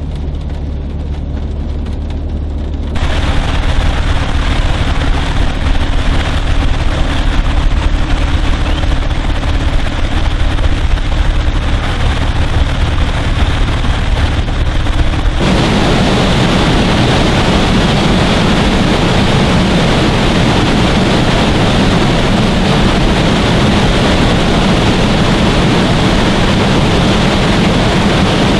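A vehicle engine idling with a low steady hum. About three seconds in it gives way to the loud rushing of a flood-swollen creek. About fifteen seconds in this changes abruptly to a louder, steadier rush of floodwater pouring down a concrete dam spillway.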